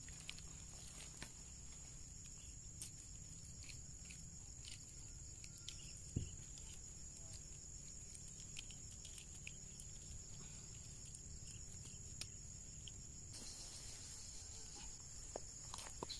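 Steady high-pitched insect trill, with faint rustling and snapping of leaves and stems as roselle calyces are plucked by hand, and one soft thump about six seconds in.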